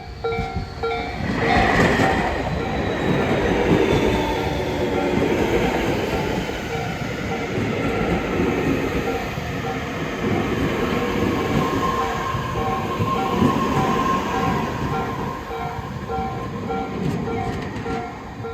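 Tobu 60000 series electric train arriving at a station. Its rolling and braking noise comes in loudly about a second in and carries on almost to the end, with some wheel clatter and squeal. A repeated electronic warning beep pulses underneath throughout, clearest at the start and near the end.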